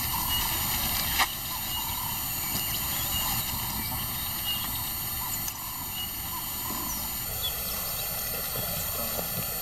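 Outdoor field ambience with a steady low rumble and hiss, faint short chirps scattered through, and a single sharp click about a second in.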